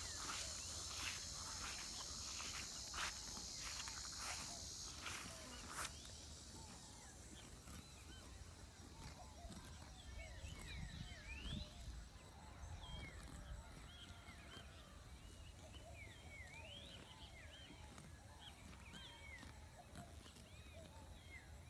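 Pasture ambience. For about the first six seconds there are crisp clicks about twice a second under a high insect buzz. After that the buzz and clicks stop and scattered small bird chirps go on to the end.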